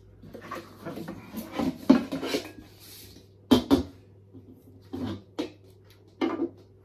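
Lid and handle of a George Foreman indoor-outdoor electric grill being handled and fitted: a run of knocks and clatters, with two sharp knocks about three and a half seconds in and a few single knocks near the end.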